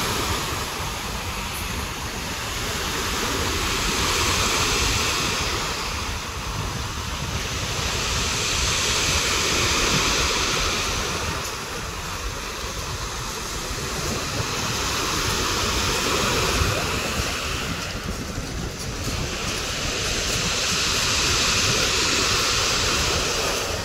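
Sea surf washing in against the shore in slow surges, swelling and fading about every six seconds. A strong wind blows across the microphone, adding a steady low rumble.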